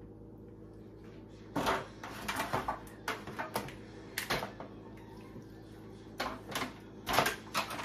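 Raw seasoned chicken pieces being laid one by one into a thin disposable aluminium foil pan: a scattering of short crinkles and taps of the foil, in two clusters, over a steady low hum.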